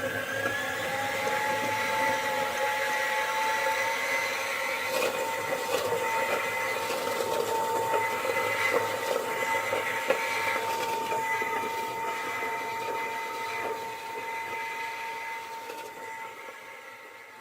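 The aspirator blower of a Buchi Mini Spray Dryer B-290 running during a cleaning run, a steady motor whine whose pitch rises a little in the first couple of seconds as it is turned up to about 80%, then holds. It fades down near the end.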